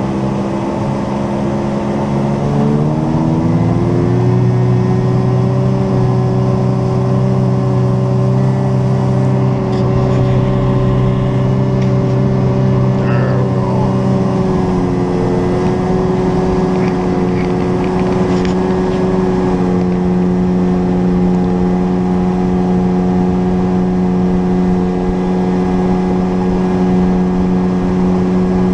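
Boat engine speeding up over the first few seconds, then running steadily under way, its pitch shifting a little about halfway through.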